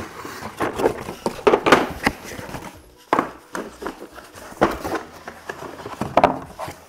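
Cardboard boxes being handled and opened, with rustling and scraping of cardboard and several short knocks as a hard plastic tool case shifts and slides inside its box.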